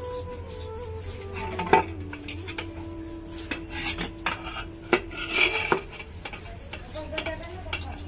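Hands scrubbing the soot-blackened metal body of a pressure cooker: gritty rubbing and scraping, with sharp knocks of the pot against the floor about two seconds in and again about five seconds in. Soft background music with long held notes runs underneath.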